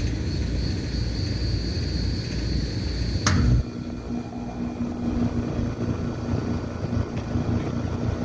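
Trane XR15 2-ton air conditioner's outdoor unit starting up. A sharp click about three seconds in is followed by a steady hum from its Climatuff reciprocating compressor and condenser fan.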